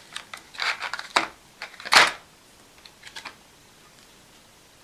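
Thin clear plastic wrapping crinkling in a run of short crackles as it is peeled off a small model locomotive, the loudest about two seconds in, with a few faint crackles near three seconds.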